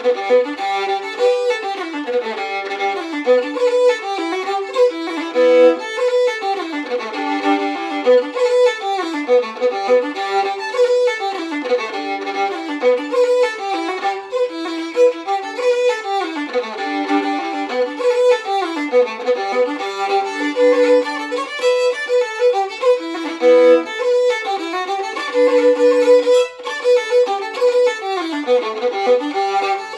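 Unaccompanied fiddle playing a fast Irish traditional reel: quick running bowed notes that keep returning to one recurring note.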